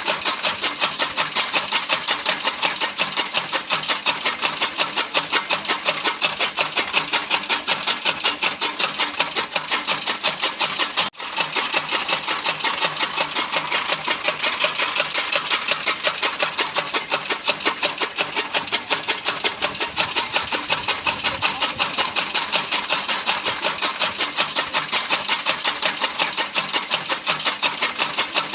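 Fodder cutting machine (chaff cutter) running, with a rapid, even rhythm of about five to six beats a second. It breaks off for a moment about eleven seconds in.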